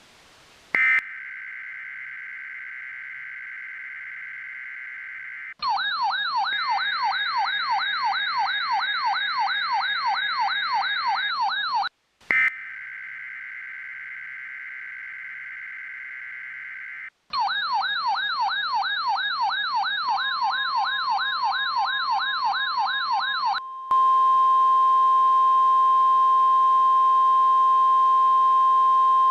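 Emergency alert broadcast tones. A steady, buzzing two-tone EAS/SAME data burst about a second in is followed by a rapid siren-like warble rising and falling about four times a second. After a short gap, the data burst and the warble repeat. Near the end of the second warble a single steady, high NOAA Weather Radio alert tone comes in, then plays alone, louder, until the end.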